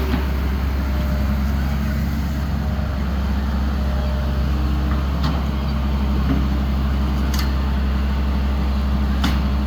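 An engine running steadily with a low, even drone, with a few sharp clicks over it in the second half.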